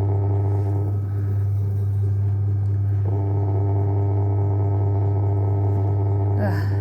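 JW Ratcliffe and Sons electric pottery wheel running, its motor giving a steady hum. Its higher tones thin out about a second in and come back about three seconds in.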